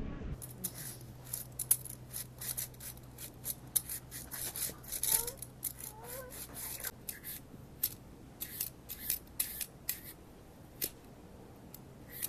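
Hand vegetable peeler shaving a red cabbage and then peeling a carrot into a bowl: an irregular run of short scraping strokes, several a second, thinning out near the end. A faint steady hum runs underneath for most of it.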